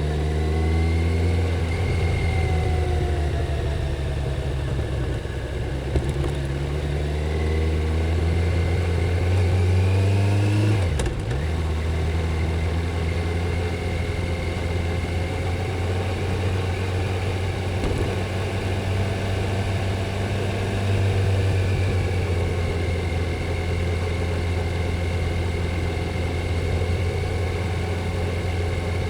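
Stock Kawasaki Z900 inline-four engine and exhaust on the move. The engine note climbs steadily for about ten seconds, dips suddenly about eleven seconds in, then runs at a fairly steady cruising pitch with small swells.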